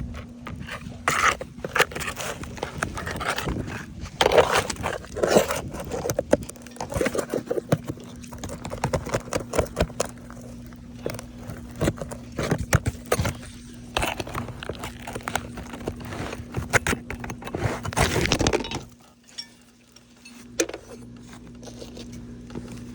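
A roof shingle being pried and torn loose, with irregular scraping, crackling and sharp clicks as it is worked free of its nails. The sounds stop about 19 seconds in.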